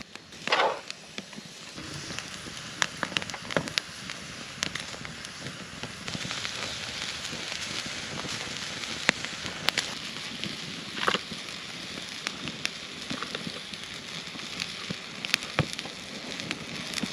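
Wood fire crackling, with scattered sharp pops over a steady hiss.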